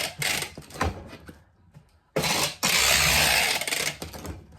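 Packing tape pulled off the roll to seal a cardboard shipping box: two short rips in the first second, then, after a pause, one long pull of nearly two seconds.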